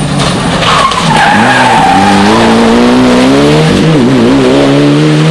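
Rally car sliding through a corner with its tyres squealing, the squeal falling in pitch, then the engine revving up loud as the car accelerates away. Near the end the engine pitch dips briefly and then climbs again.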